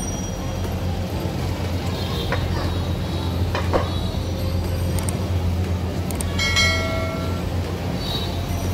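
Street background of a steady low mechanical hum, with a few faint knocks and a short high ringing tone about six and a half seconds in.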